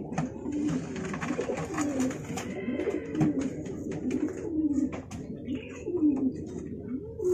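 Domestic pigeons cooing over and over in low, bobbing calls, with a few sharp knocks as a bird is lifted out of a wooden loft box.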